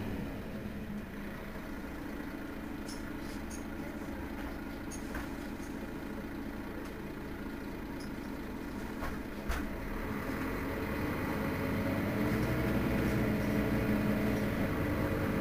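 Mercedes-Benz Citaro Facelift city bus idling at a standstill, its rear-mounted engine giving a steady drone. There is a single short knock about nine seconds in, and the engine note grows louder soon after.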